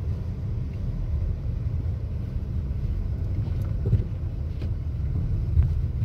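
Steady low rumble of a car driving on a snow-covered road, heard from inside the cabin.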